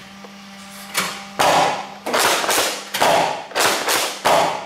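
Nerf Rival Hades spring blaster firing foam balls in quick succession: about five or six sharp clacking shots and priming strokes, roughly one every half second to second.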